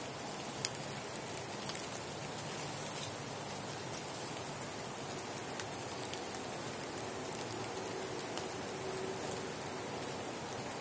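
Light autumn drizzle falling on leaves and trees, an even hiss with a few sharper drop ticks in the first couple of seconds, over faint distant city noise.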